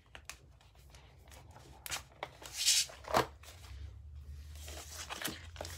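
Stack of paper and sticker sheets being handled and leafed through: scattered rustles and light taps, with the loudest rustle about two and a half to three seconds in.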